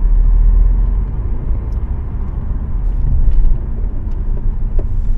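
Steady low road and tyre rumble inside a 2015 Audi A4's cabin while driving, with a few faint clicks from the front suspension. The creaking comes from worn front control-arm rubber bushings, which the mechanic says have gone loose.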